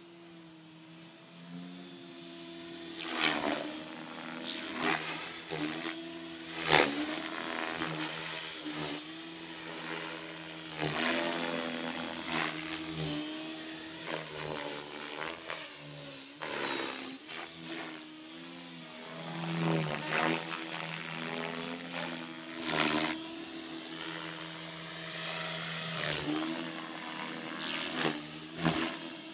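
T550 electric RC helicopter in flight, running on GensAce 60C LiPo packs: a steady rotor and motor hum with a high whine that dip in pitch and recover again and again as it manoeuvres. Whooshing rotor-blade swishes come at each hard move.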